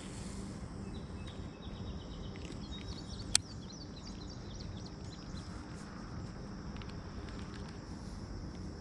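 Steady insect chorus, a high even buzz, with short bird chirps over the first few seconds. There is one sharp click about three and a half seconds in.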